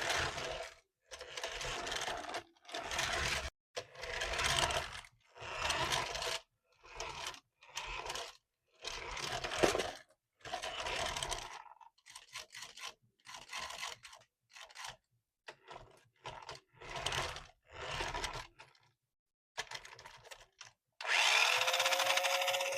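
Repeated scraping and rubbing strokes, each lasting about half a second to a second, with short gaps between them. Near the end a louder, steadier sound with a humming tone sets in.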